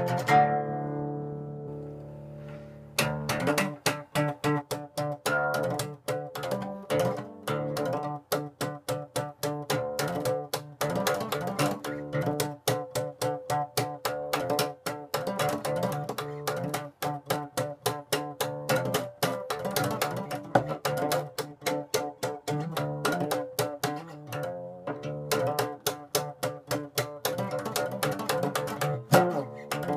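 Solo acoustic guitar: a chord rings out and fades for about three seconds, then fast, rhythmic strumming of chords starts again and carries on steadily.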